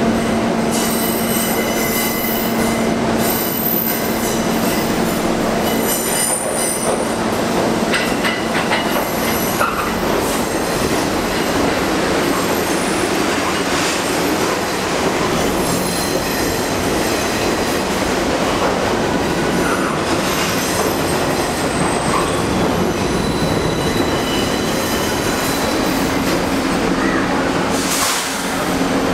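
Three-car R62A subway shuttle train pulling into a curved station over a steady rumble, its wheels squealing high on the curve, most strongly during the first several seconds.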